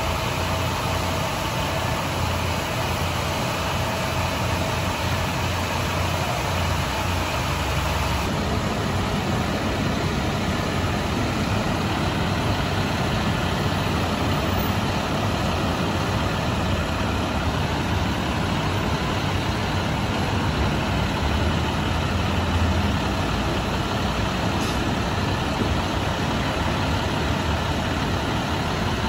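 School bus engine running at idle as the bus creeps through a car wash tunnel, under the steady noise of the car wash equipment; the mix changes slightly about eight seconds in.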